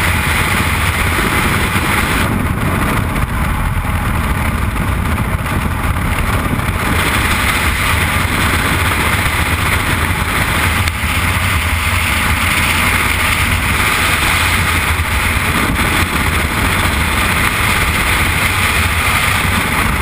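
Freefall airstream buffeting the camera microphone: a loud, steady wind rush with no break.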